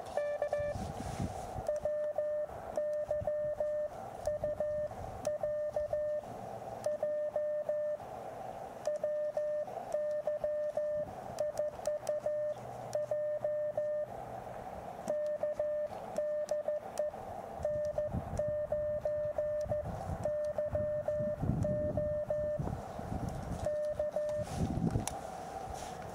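Morse code from an Elecraft KX2 transceiver: a single steady tone keyed on and off in dots and dashes, in groups with short pauses of receiver hiss between them, as the operator sends CW to answer a station's CQ call.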